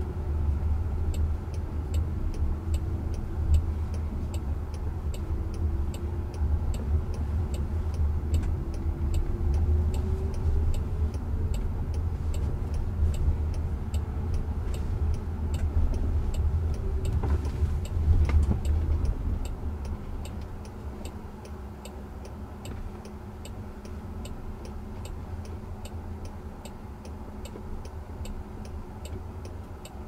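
Cabin noise inside a Jaguar I-Pace electric car on the move: a low road and tyre rumble with a faint motor whine that glides up and down, and the steady clicking of the turn-signal indicator, a few ticks a second. The rumble drops about two-thirds of the way through as the car slows.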